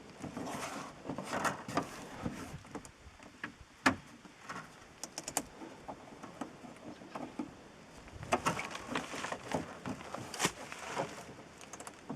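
Plastic zip ties being pulled tight through their ratchet heads: irregular short runs of clicking and plastic rattling, with one sharp click about four seconds in.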